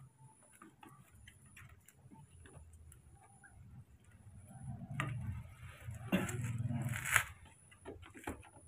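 Baby monkeys scuffling and playing on a rug: scattered light clicks and taps, with a louder rustling scramble about six seconds in that ends in a sharp click.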